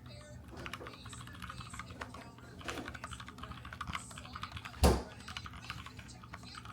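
Typing on a computer keyboard: a run of quick, irregular key clicks, with one loud thump about five seconds in.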